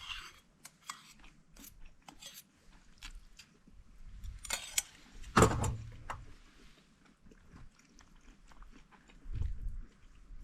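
A person chewing crunchy food close to the microphone: irregular small crunches and clicks, with one louder knock about five and a half seconds in.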